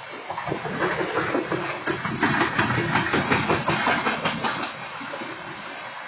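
Freight train of open-top hopper cars rolling past, with the wheels clattering in rapid clicks over the rails. The clatter swells for about four seconds, then eases back to a steady rumble near the end.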